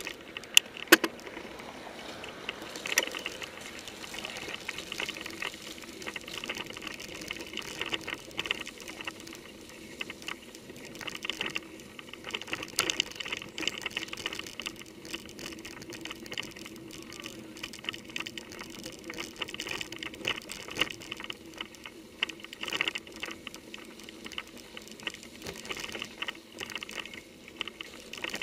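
Mountain bike rattling and clattering over a rough, leaf-covered dirt trail, heard through a handlebar-mounted camera: a dense run of small clicks and knocks, with a few sharper knocks in the first second and another about 13 seconds in.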